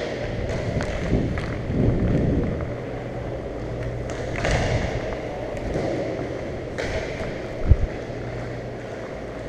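Hockey skates gliding and striding on the rink surface, heard close by, with louder scraping pushes a few times. There is a single sharp low thump about three-quarters of the way through.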